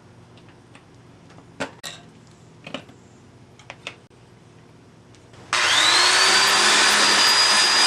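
A few light knocks and clicks of parts being handled, then about five and a half seconds in a power tool with a wire brush starts up, its motor whine rising and settling, and runs loudly while scrubbing rust off the steel bicycle rim.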